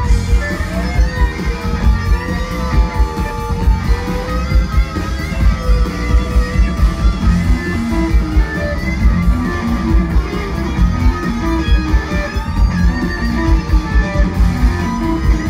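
Live rock band playing an instrumental passage with no singing: electric guitars and bass guitar over a steady beat, one guitar playing bending lead lines.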